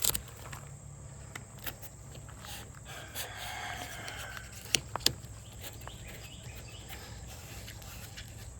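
A few light, sharp clicks over a steady background, with a faint drawn-out animal call about three seconds in.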